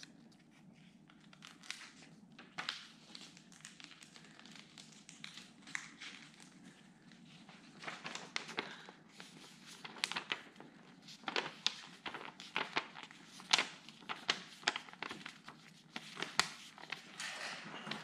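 A folded sheet of paper crinkling and crackling as it is handled and rolled around a pencil, in irregular crackles that come more often in the second half.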